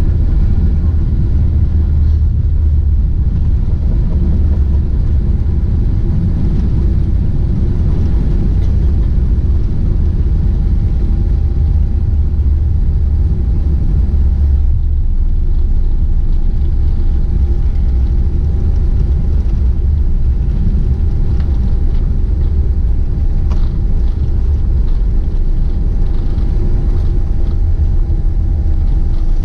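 Steady low rumble of a Boeing 747-8 airliner heard inside the passenger cabin, from its engines and airflow, with a faint steady whine on top.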